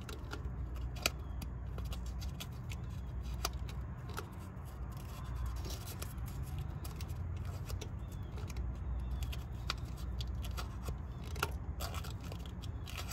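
Small metallic clicks and scrapes from fingers working the breaker points inside an open distributor on a 1937 Plymouth flathead six, over a steady low rumble.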